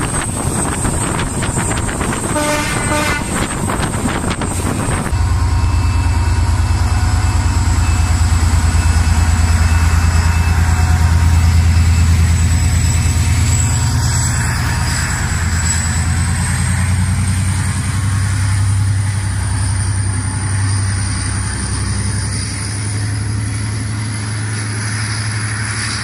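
Rapid wheel clicking of a moving train heard from on board, with a brief horn blast about three seconds in. After a cut at about five seconds, an HŽ series 2044 diesel locomotive's engine running with a steady deep drone and a thin high whine that rises slightly partway through.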